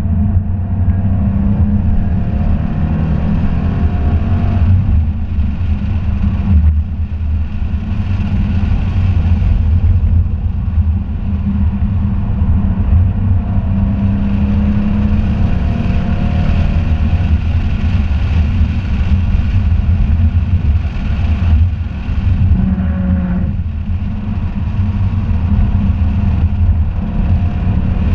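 2017 Ford Mustang GT's 5.0-litre V8, heard from inside the cabin, driven hard on a race track: the engine note climbs and falls over and over, with several brief drops where the driver shifts or lifts off for a corner.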